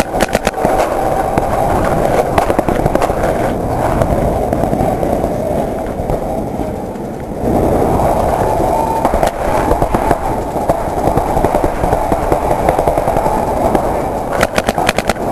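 Paintball marker firing quick strings of shots just at the start and again near the end, each string several rapid cracks. Between them, a steady rough rumble of the marker and its mounted camera being carried and moved around.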